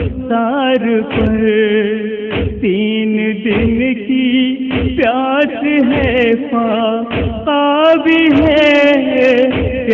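An Urdu noha, a Shia lament, sung by a man in long held, wavering notes, with a low thump about every 1.2 seconds keeping a slow beat.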